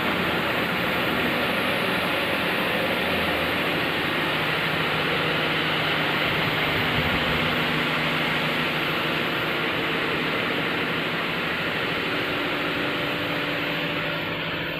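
HDPE pipe extrusion line running: a steady wash of machinery noise from its pumps and motors, with faint steady hums underneath.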